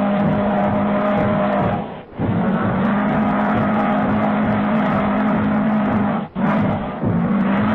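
Diesel locomotive horn sounding in long, steady blasts, broken by short gaps about two seconds in and twice near the end.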